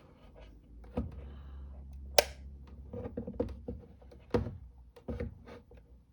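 A soldering station being switched on and handled: a run of clicks and knocks on the bench, the loudest a sharp click about two seconds in, with a low hum from about one second in to about three seconds in.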